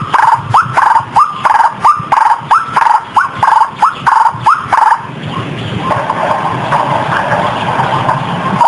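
White-breasted waterhen (ruak-ruak) calling: a fast run of repeated rising notes, about two to three a second. About five seconds in it gives way to a denser, steadier chatter.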